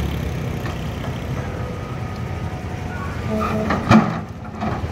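Caterpillar 320CL excavator's diesel engine running steadily as the boom and bucket work, with a single loud clank about four seconds in.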